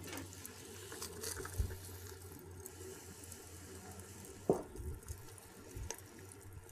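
Root beer and sliced onions boiling in a pan with bratwurst, a faint steady bubbling hiss. Metal tongs click against the pan a few times as the sausages are turned, the sharpest click about four and a half seconds in.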